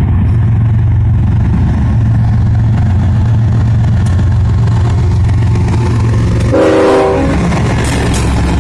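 Diesel freight locomotive engine running with a steady low drone, and a brief multi-note air horn blast about six and a half seconds in.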